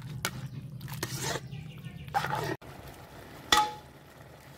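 Perforated steel ladle stirring and scraping sauce in an iron kadhai, in short rattling bursts. After an abrupt cut, a single sharp metal clink with a brief ring, the loudest sound here.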